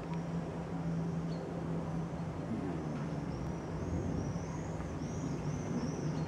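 Boeing E-3 Sentry AWACS jet's four TF33 turbofan engines droning steadily as it passes low overhead, with a constant low hum under the engine noise. In the second half, a bird chirps in a quick run of short high notes.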